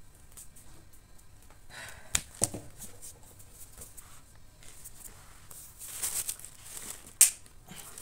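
Fingers stirring dry wheat and rice flour in a steel plate: soft rustling and scraping, with two sharp knocks against the plate a little after two seconds and a louder click about a second before the end.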